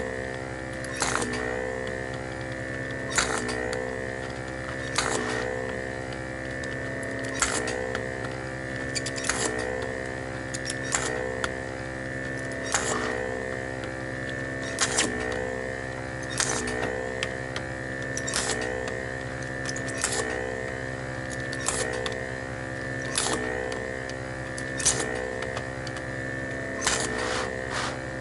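Vacuum pump of a homemade desoldering iron running with a steady whine. About every two seconds a click comes as the vacuum is triggered on a solder joint, and the pump's note dips and recovers as it sucks up the molten solder.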